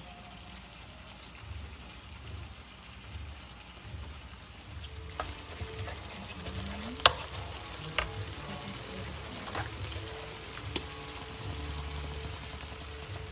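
Tomato and red onion stew sizzling in a frying pan, stirred with a wooden spatula that knocks against the pan about five times in the second half, the sharpest knock about seven seconds in.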